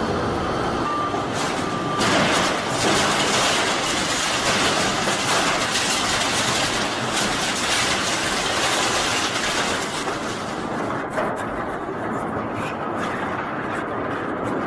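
Heavy machinery running steadily, a loud even noise, with two short electronic beeps about one and two seconds in. The high hiss thins out after about ten seconds.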